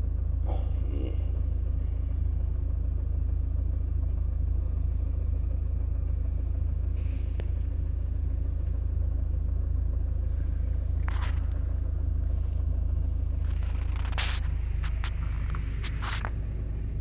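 Small car's engine running with a steady low drone, heard from inside the cabin. Several clicks and scrapes of a phone being handled come in near the end.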